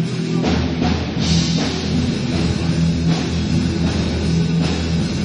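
Rock band playing loudly, with electric guitar over a drum kit; the drums and low end come in about half a second in, with repeated cymbal crashes.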